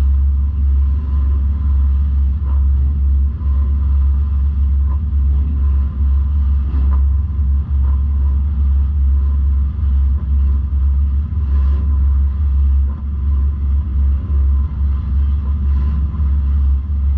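Four-cylinder demolition derby car's engine running steadily, heard from inside the car, as a heavy deep rumble with a few brief dips.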